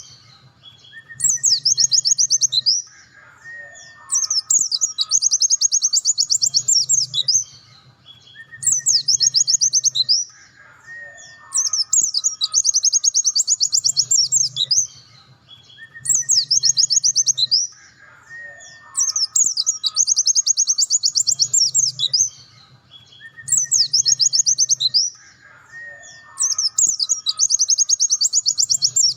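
Pleci (white-eye) singing its fast 'nembak' song: bursts of very rapid, high trilled notes, each two to three seconds long, with short gaps holding fainter, lower whistled notes. The same phrase pattern comes round about every seven seconds.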